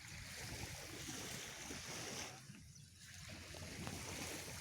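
A sleeping person snoring: two long, airy breaths, the second starting about three seconds in.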